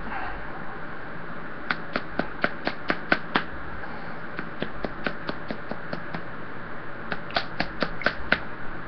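A small bottle of pepper puree shaken hard in the hand, clicking about five times a second in three runs with short pauses between.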